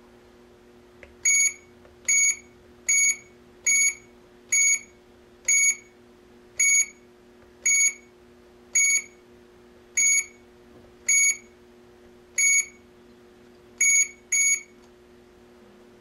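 AAS GSM alarm control panel beeping as its keypad is pressed: about fourteen short, high beeps, one per key press, at uneven gaps of around a second. A faint steady hum lies underneath.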